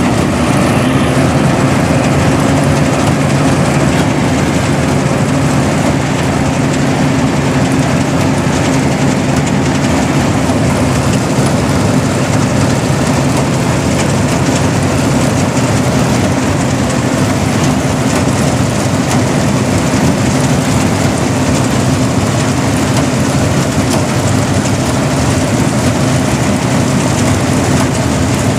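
Engine of a rice-harvesting machine running at a constant speed, a steady hum under a continuous rushing noise.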